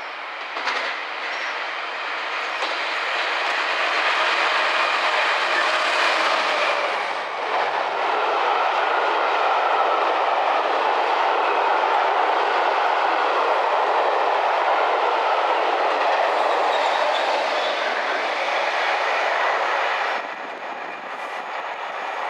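Class 66 diesel locomotives hauling a passenger railtour through a station at speed. The engine noise swells as the train approaches and passes. The coaches' wheels then rumble over the rails for about twelve seconds, and the sound drops away suddenly as the end of the train goes by.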